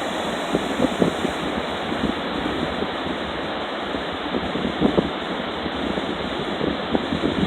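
Pacific Ocean surf washing onto the shore, a steady rushing wash, with wind buffeting the microphone in an uneven low rumble.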